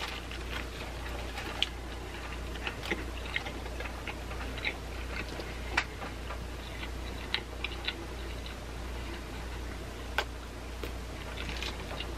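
Close-miked chewing of a mouthful of burger: small wet mouth clicks and smacks at irregular intervals, over a steady low hum.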